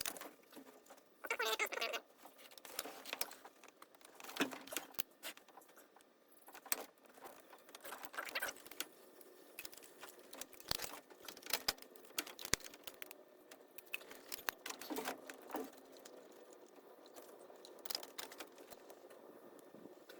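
Scattered light clicks, taps and short metallic rattles of hand tools and small parts being handled while a carburetor is fitted, with denser rattling bursts a couple of times.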